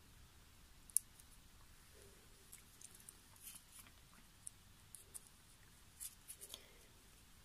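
Faint, scattered ticks and rustles of fingers handling twisted mizuhiki paper cord and green floral tape while wrapping the tape around a wire stem, with a sharper single tick about a second in.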